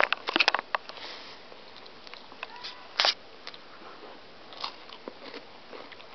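Crunchy cracker being bitten and chewed close to the microphone. A quick cluster of crisp crunches comes near the start and one loud crunch about three seconds in, with quieter chewing crackles between.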